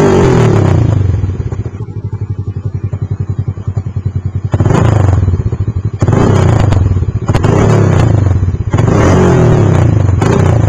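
Honda Biz 125's single-cylinder four-stroke engine through an aftermarket aluminium exhaust: the revs fall back to a choppy idle with distinct exhaust pulses for about three seconds, then the throttle is blipped four times, the revs rising and falling with dips toward idle between.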